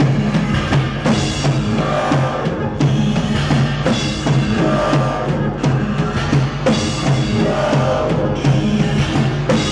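Live band playing loud music: a drum kit with electronics run from laptops and effects gear, over a repeating low bass pattern.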